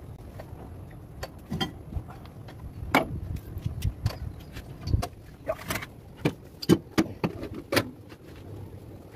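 Irregular metallic clinks and knocks of heavy truck clutch parts, the clutch disc and pressure plate, being handled and seated against the flywheel.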